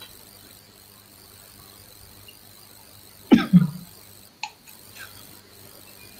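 A person coughing: a short double cough about three seconds in, heard through a video call's audio.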